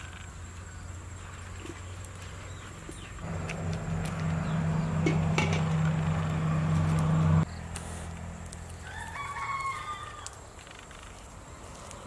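A rooster crowing once, about three-quarters of the way through, over a steady low hum. Before that, a louder steady low hum with a rushing layer runs for about four seconds and cuts off abruptly.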